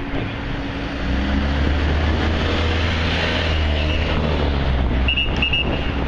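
Low, steady vehicle engine rumble at a busy construction site, growing louder about a second in, under a general hiss of street noise. A few short high beeps sound near the end.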